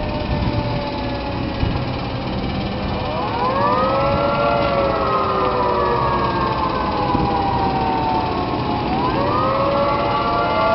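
Federal Signal Thunderbolt 1003 outdoor warning siren sounding a multi-tone chord over a low machinery rumble. The chord glides up about three seconds in, sags slowly in pitch, and winds back up near the end.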